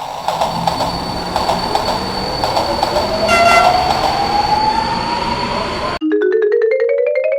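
Train sound effect: a steady rail rumble with a slowly rising tone and a short horn toot about three and a half seconds in. About six seconds in it cuts off sharply into a quick rising run of musical notes.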